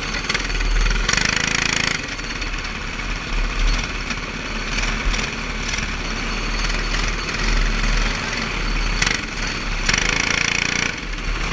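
Small go-kart engine running as the kart rolls slowly off, heard from the driver's helmet, with a couple of louder surges about a second in and again near the end.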